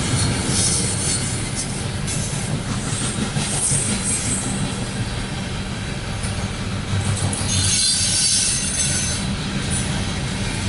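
Empty grain train's freight cars rolling past with a steady rumble of wheels on rail. High-pitched wheel squeal comes and goes, loudest about eight seconds in.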